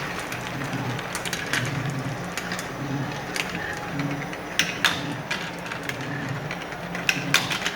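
Scattered sharp clicks of marbles knocking against each other and the track, with two louder pairs of knocks about two-thirds of the way in and near the end, over a steady low background.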